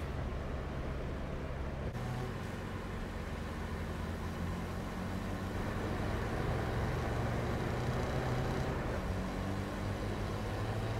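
Engine of a small old car running steadily as it drives, with road noise; the engine note shifts about two seconds in.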